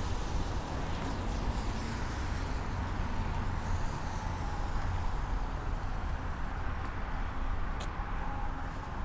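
Steady low rumble of city traffic with a faint steady hum, and one short high click near the end.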